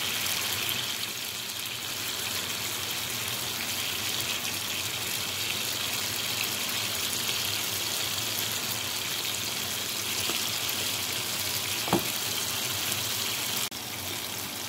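Chopped tomatoes sizzling steadily in hot oil in a frying pan. A single sharp knock about twelve seconds in, and the sizzle drops a little quieter shortly before the end.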